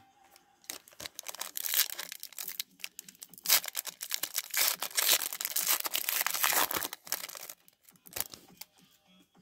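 The plastic wrapper of a hockey card pack being torn open and crinkled by hand, a dense run of crackling and rustling that tapers off near the end.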